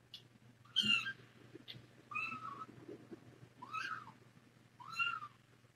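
Young kitten, about three weeks old, mewing: four short, high-pitched cries, about one every second and a half.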